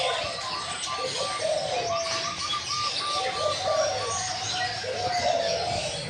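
Caged diamond doves cooing repeatedly in runs of short soft notes, with the high chirping of other small cage birds behind them.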